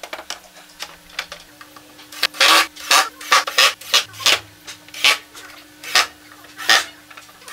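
A cordless drill run in short trigger bursts into the pine sled base, each burst a brief scraping rasp, about one or two a second, starting about two seconds in.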